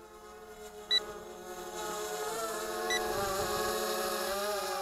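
Hum of the L109 Pro brushless quadcopter's motors and propellers, wavering in pitch and growing louder partway through. Short beeps sound every two seconds, the repeating alarm of a drone flown while its battery runs down.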